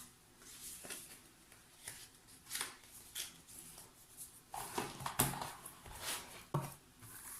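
Paper and plastic merchandise being handled: intermittent rustling with light clicks and taps, the sharpest about five seconds in.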